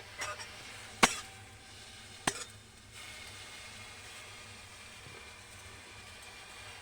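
Kitchen utensils clinking sharply a few times, the loudest about a second in and another about two seconds in, followed by a faint steady hiss.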